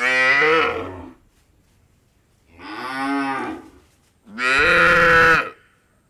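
Cows mooing: three moos, each lasting about a second, the middle one quieter than the other two.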